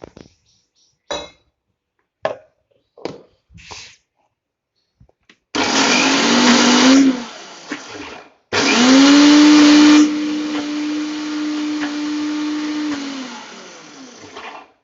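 Electric mixer grinder grinding soaked chana dal coarsely in pulses: a few knocks of the jar, then a short run of about a second and a half, a brief pause, and a longer run of about six seconds that winds down at the end.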